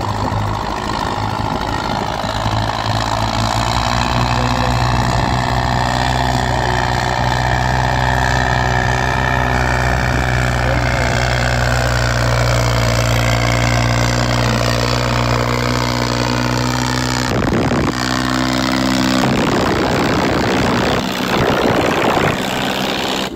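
Sonalika DI 35 tractor's diesel engine working hard under heavy load as it drags a sandbag-weighted harrow through ploughed soil, its pitch sagging slowly under the strain. A rough rushing noise joins it for the last few seconds.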